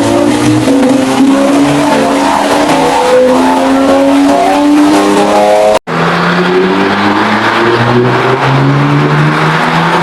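Nissan Z sports car engines accelerating hard. The first engine's pitch climbs in several short runs. About six seconds in there is a sudden cut to a second Z whose engine pitch climbs more slowly and steadily.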